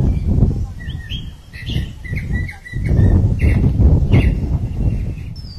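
Small birds chirping in short, repeated notes, most thickly in the middle, over a low rumbling noise that swells and fades.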